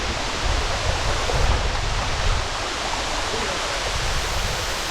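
Waterfall rushing: a steady, loud wash of falling water, with a heavier low rumble in the first couple of seconds.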